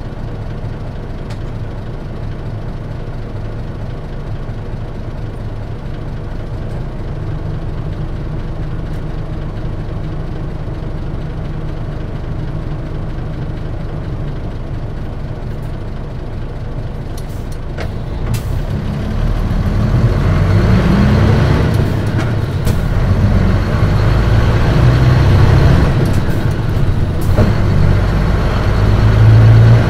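Inside a 1997 Mitsubishi Fuso Aerostar KC-MP717P city bus with a manual gearbox: the diesel engine idles steadily at a stop. About 18 seconds in there are a few clicks, then the engine revs up and gets louder as the bus pulls away and accelerates.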